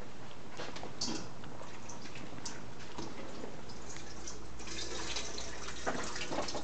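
Liquid dripping and splashing in a small bowl, with light handling clicks, busiest in the last two seconds.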